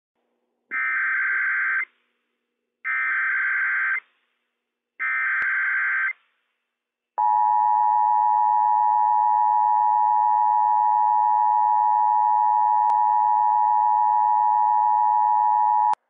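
Emergency Alert System test broadcast over NOAA Weather Radio. It starts with three short, identical squawking data bursts, the digital SAME header that starts the alert. About seven seconds in, a loud, steady two-tone attention signal begins and holds for about nine seconds.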